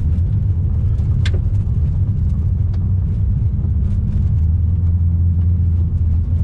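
Ute driving on a gravel road, heard from inside the cab: a steady low rumble of engine and tyres, with one sharp tick about a second in.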